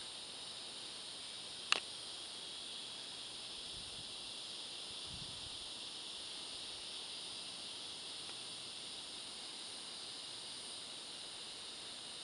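Steady high-pitched hiss of an evening insect chorus, with a single sharp click about two seconds in.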